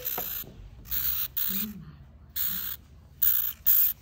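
Newborn hamster pups crying: about five short, shrill squeaks in quick succession.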